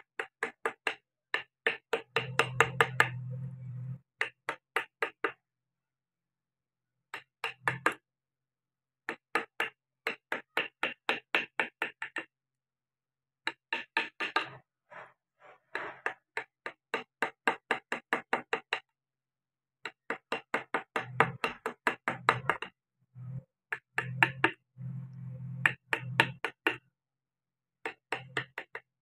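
Wood-carving chisel driven into wood with quick mallet taps, about three to four a second, in runs of several seconds with short pauses between.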